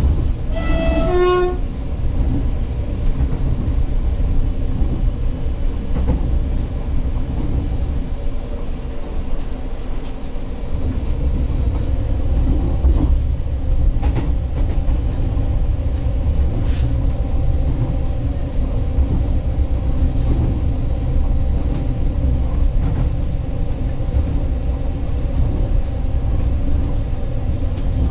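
Running noise of an ŁKA 36WEd electric multiple unit under way, heard from inside: a steady low rumble. About a second in, a brief run of short tones falls quickly in pitch.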